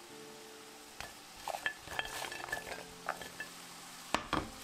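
Crisp fried wheat-flour snack pieces clinking in a steel bowl as they are handled: a scattering of light taps with a faint metallic ring. A sharp click comes near the end, with oil sizzling in a frying pan.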